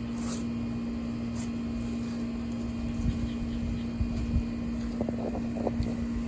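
A steady low machine hum, with a few soft low thumps in the second half from digging and handling garden soil by hand.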